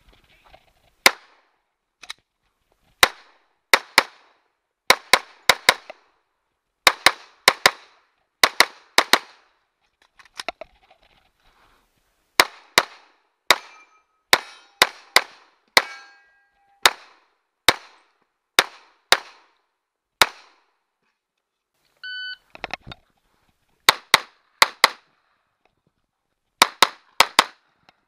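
A Glock 21 .45 ACP pistol firing many shots, mostly in quick pairs with short strings and pauses between. About 22 s in, a brief electronic beep of a shot timer gives the start signal, and the shooting picks up again a second or so later.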